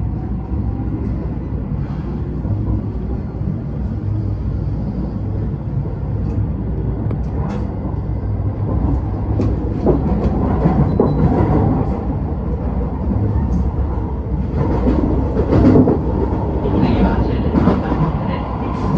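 Rapid Marine Liner electric train heard from inside a carriage while running: a steady low rumble from wheels and motors. Clicks and knocks over the track grow more frequent, and the sound gets louder from about halfway.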